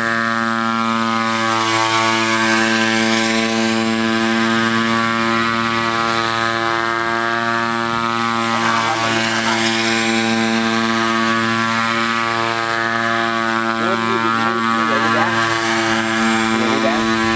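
Gas-engine hybrid pentacopter in flight: its petrol engine and propellers run together as one loud, steady drone. The pitch holds constant throughout.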